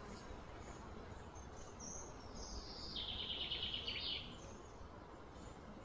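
Quiet outdoor background noise, with one high bird call about two seconds in: a note sliding down into a fast trill that stops about four seconds in.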